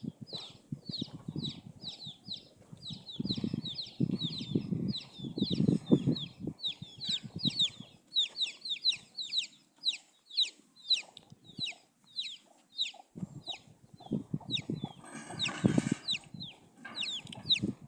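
A flock of chickens clucking, over a rapid run of high, thin peeps at about three or four a second. A brief rustling burst comes about three-quarters of the way through.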